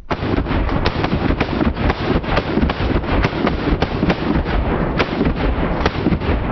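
12 gauge shotgun blasts in a dense, continuous run, one boom merging into the next with sharp cracks all through. It starts suddenly.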